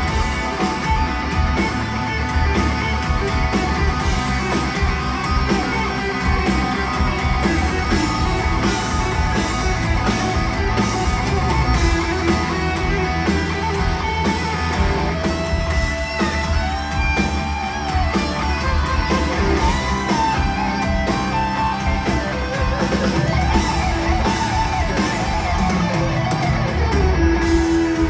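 Heavy metal band playing an instrumental passage live, led by electric guitar, with sustained lead notes bending in pitch in the second half.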